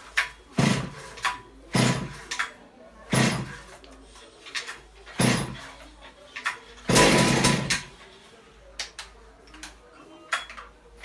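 Starter cord of a new Stihl MS 382 two-stroke chainsaw being pulled repeatedly: a series of short, sudden bursts, with one longer pull about seven seconds in, the engine not yet running.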